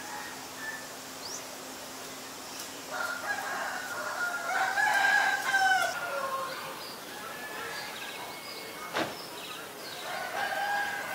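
A bird calling: one long call that grows louder and breaks off suddenly about six seconds in, and another starting near the end, with a single sharp click in between.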